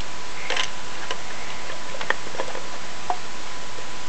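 Light, irregular clicks and taps of a Thomas Wooden Railway engine and its wooden track being handled, a few scattered knocks over a steady hiss with a faint even hum.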